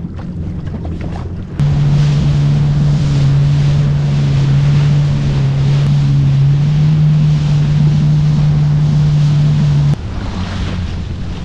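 Yamaha FX HO WaveRunner's four-stroke engine running at a steady cruising throttle under way, with water and wind rushing past. The engine note comes in abruptly about a second and a half in, rises slightly in pitch midway, and cuts back suddenly near the end.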